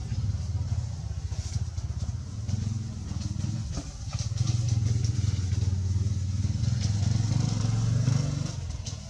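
A motor engine running steadily with a low hum, growing louder through the middle and fading away near the end.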